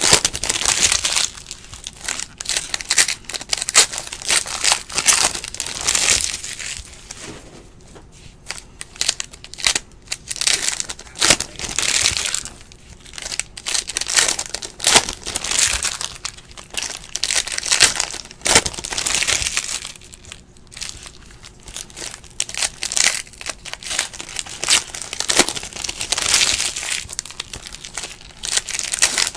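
Foil wrappers of trading-card packs being torn open and crinkled by hand, in repeated bursts of crackling every few seconds with short lulls between.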